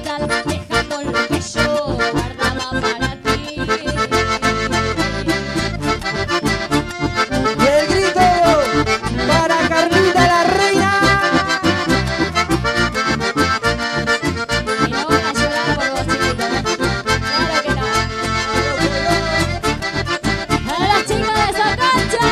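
Chamamé music played live, an accordion carrying the melody over a steady, even beat, with no singing.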